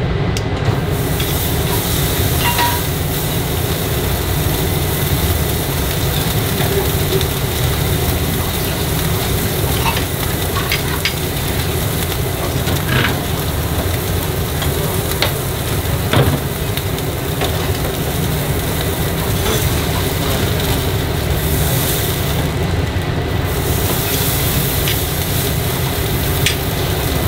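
A thick block of beef sizzling on a grill grate over hot charcoal, with scattered crackles and pops over a steady dense hiss.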